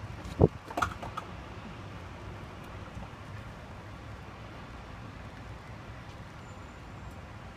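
Steady, low city background noise with a few short knocks in the first second or so, the loudest about half a second in.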